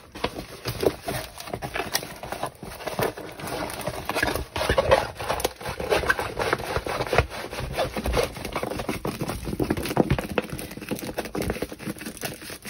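A diamond painting canvas with its plastic cover film being handled and rolled backwards to flatten it: continuous crinkling and scraping with many small crackles.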